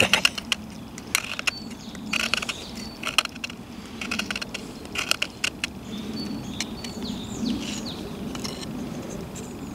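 Knife blade scraping a stick of resin-soaked pine fatwood, shaving off fine curls in a series of short scraping strokes, about one a second.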